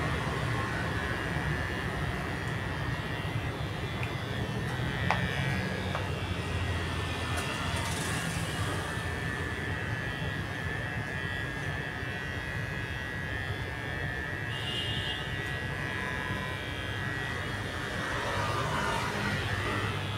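Electric hair clipper running with a steady, even buzz while cutting short hair over a comb.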